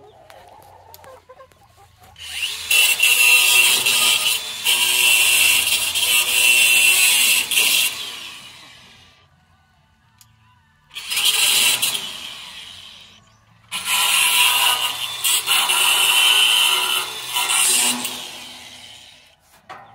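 A power tool running in three long bursts of several seconds each, with short pauses between.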